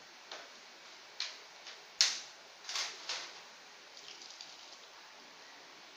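Pieces of boiled crab shell being handled and set on a plate: a handful of sharp clicks and knocks, the loudest about two seconds in, then a few light ticks.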